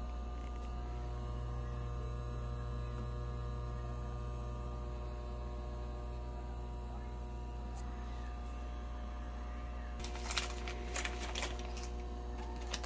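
A steady electrical hum throughout. From about ten seconds in, thin plastic packaging crinkles and crackles as a bag of udon noodles is picked up and handled.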